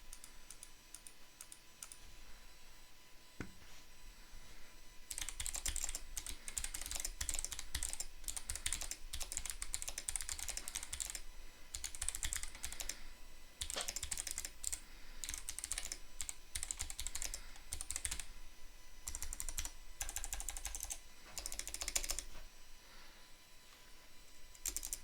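Typing on a custom mechanical keyboard with unlubed Gateron Box Jade clicky switches, a fast run of sharp clicks in bursts with short pauses. The sparse clicks of the first few seconds give way to steady typing from about five seconds in, easing off near the end.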